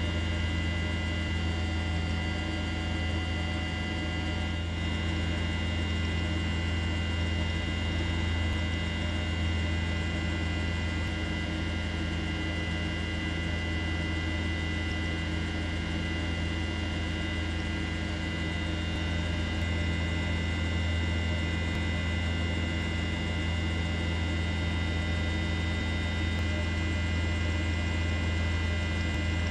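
Steady, unchanging drone of a helicopter heard from on board: a strong low hum with several steady higher tones over it.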